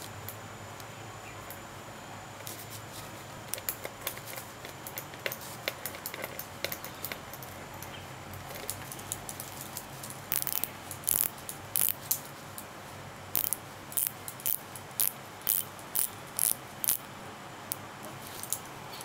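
Crisp mechanical clicks from the crown of a Tudor automatic diver's watch being turned to quick-set the date. The clicks are faint and scattered at first, then loud and regular, about two a second, through the second half.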